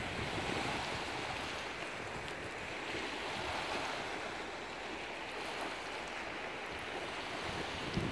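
Small lake waves lapping and washing steadily onto a pebble shore, with a little wind on the microphone near the end.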